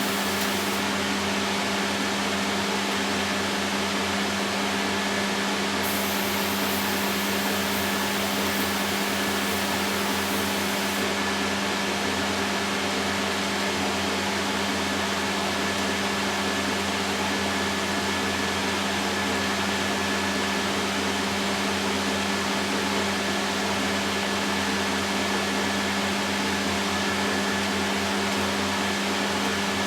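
A steady machine hum, an electric motor or fan running continuously with an even hiss over it; the hiss brightens for a few seconds around the 6 to 11 second mark.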